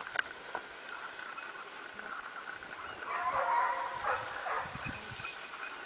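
Hunting dog barking on a rabbit's trail: a stretch of barking starts about three seconds in and lasts about a second and a half.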